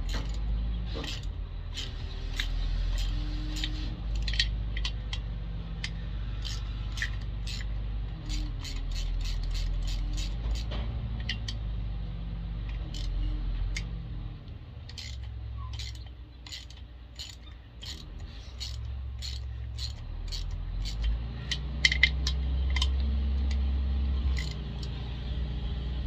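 Hand ratchet and quarter-inch socket clicking in repeated runs as screws are backed out of a McCulloch 7-10 chainsaw's oil tank, with small metallic clinks of the tool and parts. A steady low hum runs underneath.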